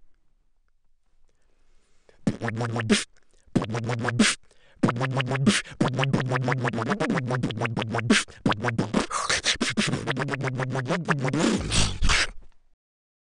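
Human beatboxing: a fast run of vocal clicks and pitched, scratch-like buzzes, starting about two seconds in, with two brief breaks, and stopping shortly before the end.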